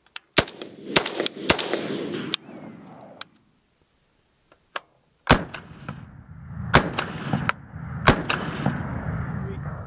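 8-inch 5.56 AR pistol fired unsuppressed through a closed-tine muzzle compensator: two strings of single shots a half second to a second apart, each shot trailed by echo, with a pause of about three seconds between the strings.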